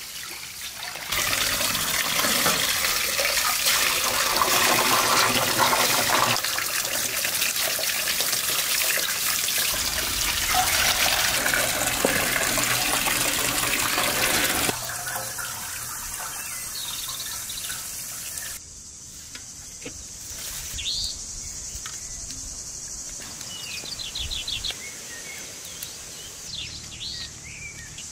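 Water running and splashing for about the first half, then it cuts off suddenly, leaving birds chirping with a few light clatters near the end.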